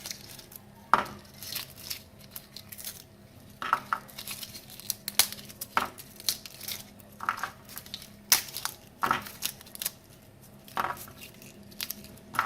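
A head of garlic being broken apart by hand into cloves: the papery skins crinkle and tear, with sharp irregular snaps as the cloves pull away.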